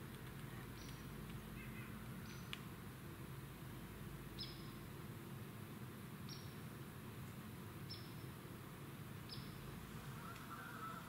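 Woodland quiet with a small bird giving a short, high chirp six times, about every one and a half to two seconds, over a faint steady low background hum.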